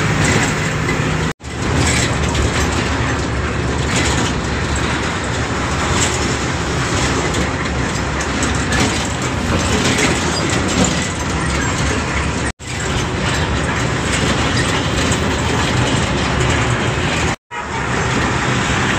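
Road noise inside a moving truck's cab: the engine running with rattling from the cab, broken off for an instant three times.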